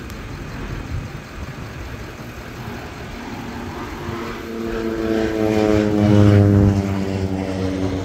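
Crop-dusting airplane's propeller engine passing low: it grows louder from about three seconds in, is loudest a little past halfway, then fades with its pitch falling slightly as it goes by.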